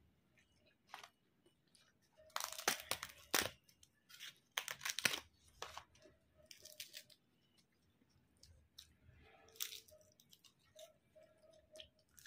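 Crisp papad being crushed and broken up by hand, sharp crackling crunches in two loud spells about two and five seconds in, then a few smaller crackles.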